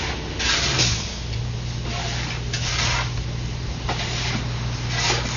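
Steady low machine hum, like an engine running, with several brief rasping swishes over it.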